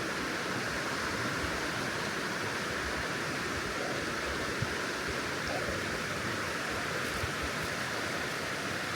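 Creek water rushing steadily, a full-running stream after rain.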